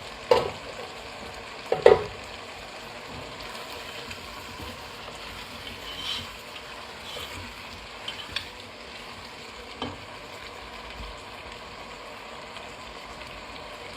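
Goat meat and spices sizzling in an open cooking pot, with two loud metal clanks near the start and a few lighter knocks of a spoon against the pot as it is stirred.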